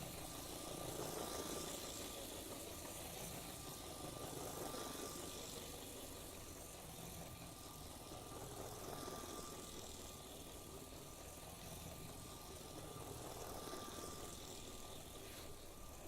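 Small battery electric motor of a remote-control Lego train running fast, its motor whirring and its wheels rattling on plastic Lego track. The sound swells and fades every few seconds as the train circles the loop.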